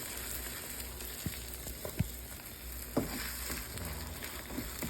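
Eggs, diced onion, peppers and chicken sizzling in a frying pan, a steady hiss, with a few sharp knocks of a utensil against the pan.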